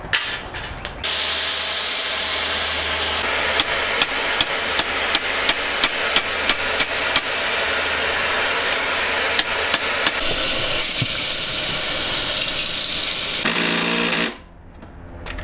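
Electric arc welding: a steady crackle and hiss over a low hum, with bursts of sharp pops, lasting about thirteen seconds and stopping abruptly when the arc is broken.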